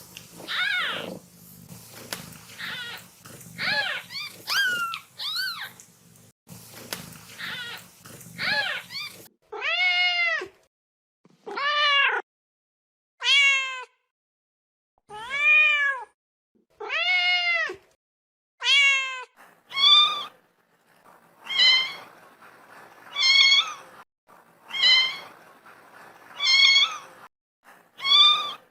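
Kitten meowing over and over: separate meows, each rising and then falling in pitch. At first they are quicker and quieter; from about a third of the way in they become louder and evenly spaced, roughly one every second and a half, and the last several are higher-pitched.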